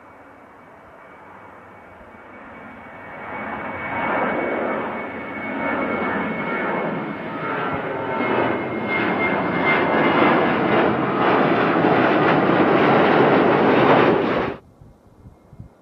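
CFM56 turbofan engines of a Boeing 737 climbing out after takeoff and passing close overhead: a jet roar with a steady high whine that builds over the first few seconds and stays loud, then cuts off suddenly about a second before the end.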